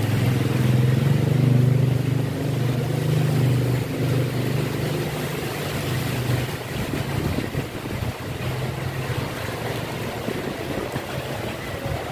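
A vehicle engine running close by, a steady low hum that breaks up and fades after about six seconds, over the steady hiss of rain falling on the street and parked cars.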